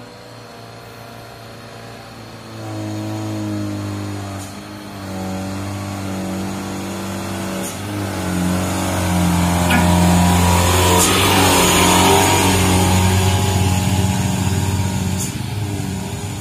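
Mitsubishi HDL136PS self-loader truck's diesel engine pulling as the truck approaches and passes close by. It grows louder from about three seconds in, is loudest around ten to twelve seconds, then eases off as the truck moves away, its engine note stepping in pitch a few times.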